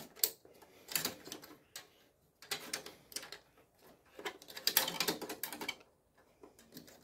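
Clicks and rattles of a hard-drive caddy being worked back into a drive bay of an HP ProLiant MicroServer Gen8, in several short bursts as it is pushed and jiggled without locking in.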